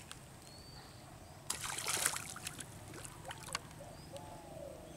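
Hooked fish splashing and thrashing at the surface of a pond as it is played on a fishing line, with the biggest splash about a second and a half in and a few smaller splashes later. Faint bird chirps.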